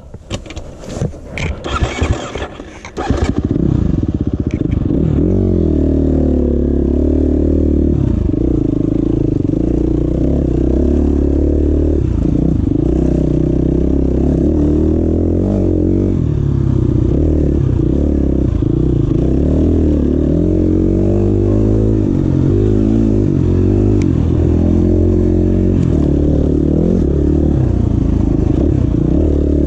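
KTM 350 XCF-W four-stroke single-cylinder dirt bike engine running under riding load, its pitch rising and falling with the throttle. About the first three seconds are irregular knocks and clatter before the engine sound takes over.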